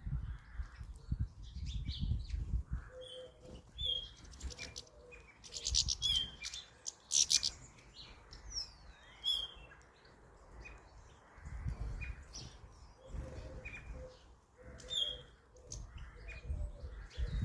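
Small garden birds chirping and tweeting around a feeder: many short, high chirps scattered irregularly, with occasional low rumbles in between.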